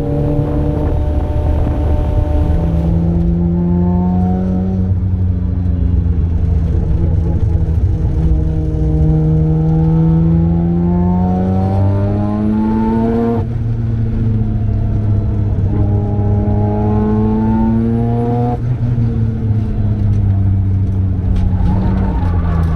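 Mazda RX-7's turbocharged 13B twin-rotor rotary engine pulling hard under full throttle on track. Its pitch climbs, then drops back at each gearchange several times, and falls away near the end as the throttle closes.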